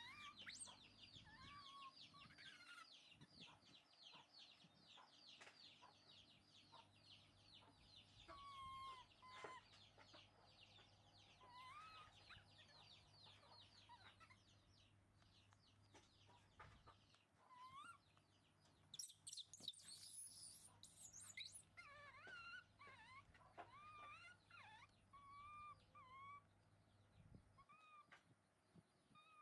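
Baby macaques giving faint short coos and whimpers, scattered through. A fast chirping runs underneath for the first half, and a brief shrill call stands out about twenty seconds in.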